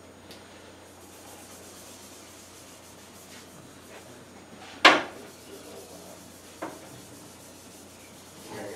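Gloved hand rubbing a black ebony oil finish into a curly maple board, a soft steady rubbing of pad and glove on wood. A sharp knock about five seconds in, and a lighter one a couple of seconds later.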